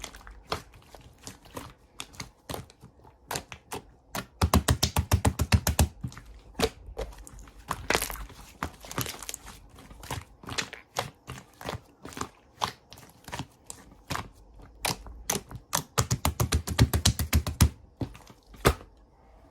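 Irregular sharp clicks and taps, broken twice by fast runs of rapid tapping at about nine taps a second, like fingers or nails typing or tapping on a hard object.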